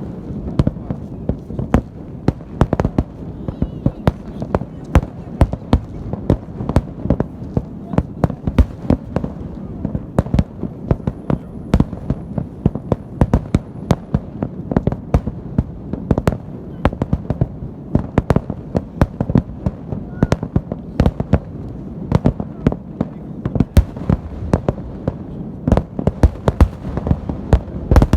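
Fireworks salute: many shells bursting in rapid, irregular succession, several sharp bangs a second over a continuous low rumble.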